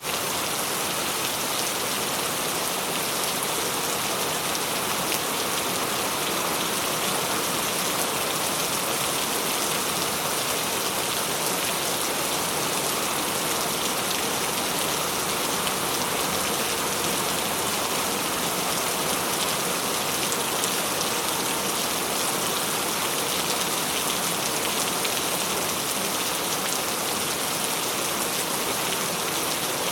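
Steady rainfall, with a dense patter of drops hitting a surface.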